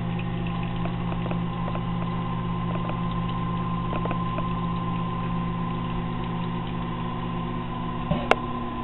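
Wort recirculation pump of a homebrew RIMS running steadily with a low hum, returning wort in a slow flow over the mash. A short knock comes near the end.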